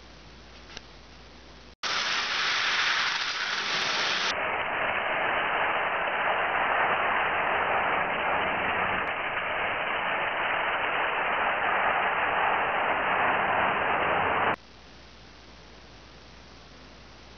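HO slot-car trucks running on a slot track: a steady whirring buzz of small electric motors and pickup shoes on the track rails. It starts suddenly about two seconds in and cuts off near the end, leaving a faint steady hum.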